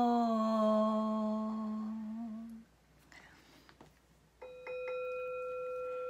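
A woman's voice holds one long sung note, the end of a line of an unaccompanied Japanese children's song, and it stops about two and a half seconds in. After a short near-silent gap, a steady bell-like tone starts about four and a half seconds in and keeps sounding.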